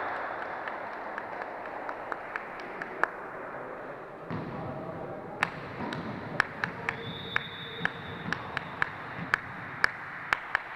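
Volleyball smacking against hands and the court floor in a sports hall: a string of sharp, irregular thuds over the hall's steady background noise. They come sparsely at first and about twice a second from about halfway on.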